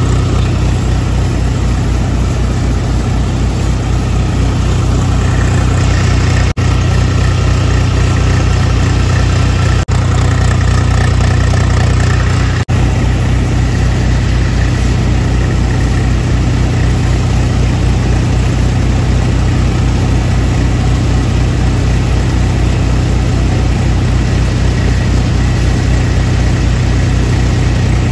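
Tractor-driven groundnut thresher running steadily at working speed, the Swaraj tractor's engine pulling under load with the thresher's drum and blower churning as peanut vines are fed in. The sound drops out very briefly three times.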